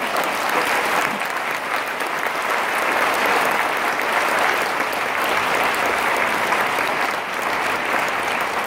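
A large audience applauding: dense, steady clapping throughout.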